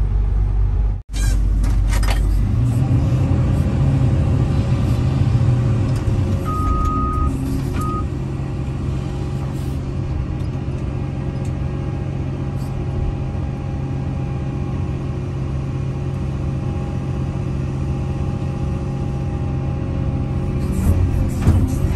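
Excavator's diesel engine running steadily while the arm and bucket are worked, heard from inside the cab. A short electronic beep, then a shorter one, sounds about six and a half seconds in.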